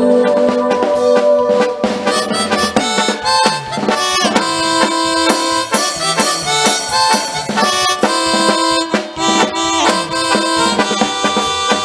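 Live regional band playing an instrumental passage of pasito duranguense: a reedy sustained lead melody over a steady drum beat, with no singing.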